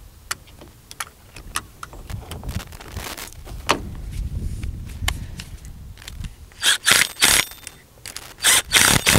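Steel cable and a wire rope clip clinking and scraping as the clip is slid up against the thimble. In the last three seconds a battery-powered impact driver runs in short bursts, driving the U-bolt nuts down tight.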